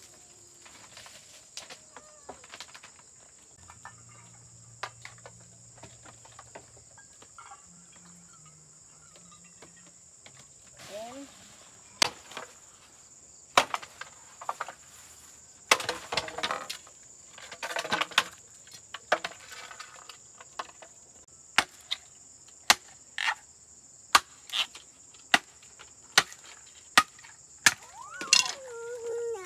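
Steady high-pitched insect drone, with sharp blows on wood starting about twelve seconds in and coming irregularly, roughly one a second.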